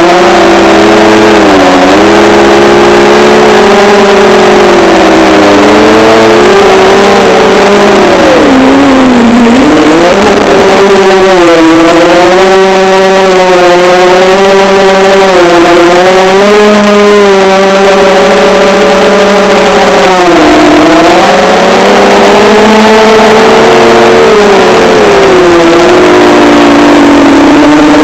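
Electric motors and propellers of an FPV drone whining loudly, picked up by a camera mounted on the craft. The pitch keeps rising and falling with the throttle, dropping sharply about a third of the way in and again about two-thirds of the way in.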